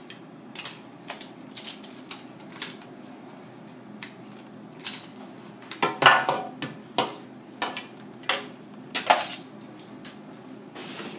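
Metal tongs clinking and knocking against an aluminium pot and a metal tray in irregular clicks as a boiled crab is lifted out, the loudest knocks about six and nine seconds in, over a steady low hiss of boiling water.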